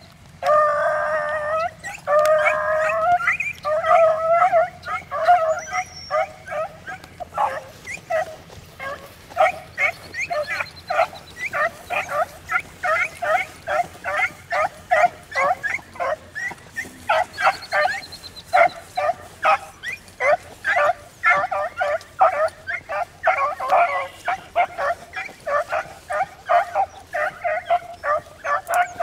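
Beagles baying, the cry hounds give while running a rabbit's scent trail. It opens with a few long, drawn-out bawls in the first three seconds or so, then settles into a steady run of short, quick chop barks, about two or three a second.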